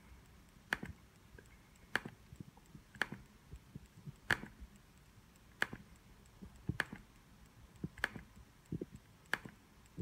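Eight single clicks of a computer's pointer button, one roughly every second and a quarter, each click re-running an online list randomizer.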